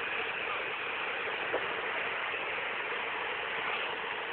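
Steady rushing noise of sea water and wind below a moving cruise ship, with one brief tick about a second and a half in.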